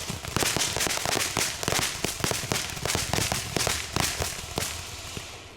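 Consumer firework crackling: a rapid, dense run of small pops that thins out and dies away near the end.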